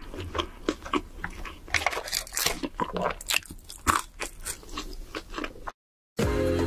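Close-miked chewing of crunchy fried fast food: irregular crisp crunches and bites. It cuts off suddenly near the end, and steady background music starts just after.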